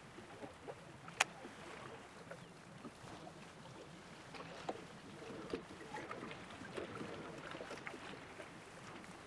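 Faint river water moving, with scattered small clicks and knocks and one sharp click about a second in.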